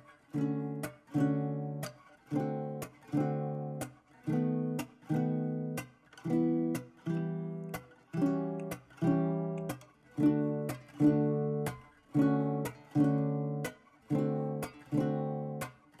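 Background music: strummed acoustic guitar chords in a steady rhythm, each chord ringing out and fading before the next.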